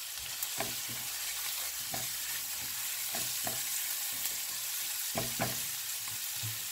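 Chopped peppers, onion and spices sizzling in oil in a non-stick frying pan, with a spatula scraping and stirring through them in irregular strokes that stop near the end.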